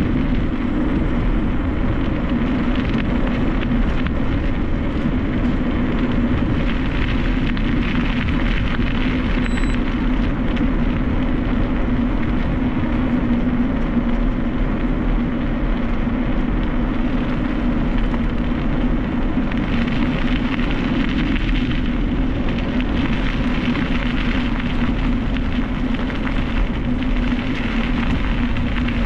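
Steady rush of wind buffeting the camera microphone, with rolling rumble, while riding a mountain bike.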